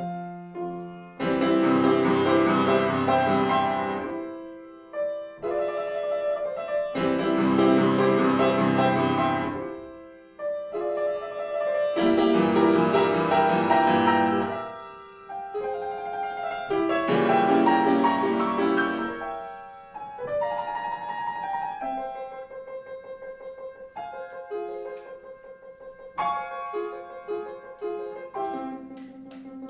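Piano music: four loud, dense chord passages about five seconds apart, then quieter, sparser playing near the end.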